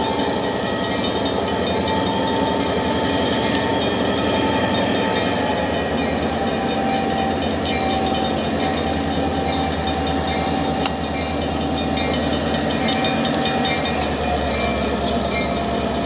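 NYS&W diesel locomotive leading a freight train through a street crossing at low speed, its engine running with a steady low throb. A held tone slowly drops in pitch, with a few light ticks from the rolling train.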